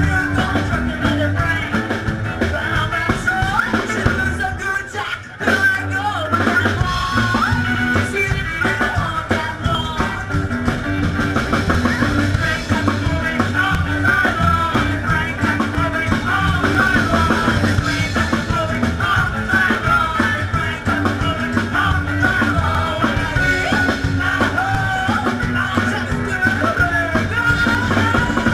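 Live rock and roll band playing: upright bass, guitar and drum kit with a woman singing, with a brief break in the music about five seconds in.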